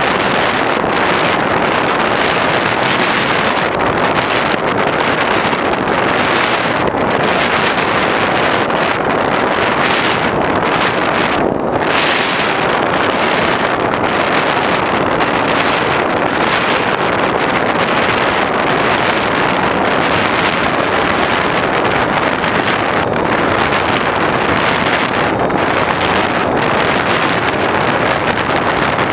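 Steady loud rush of airflow over an onboard GoPro on an X8 flying-wing model aircraft in cruising flight, mixed with the drone of its motor and propeller.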